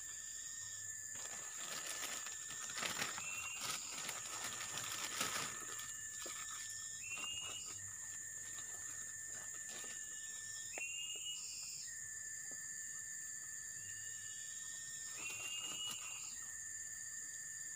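Forest insects calling continuously: a steady high drone, and a lower steady tone that breaks into a short rising, higher note about every four seconds. Over the first few seconds there is rustling and crackling of vegetation.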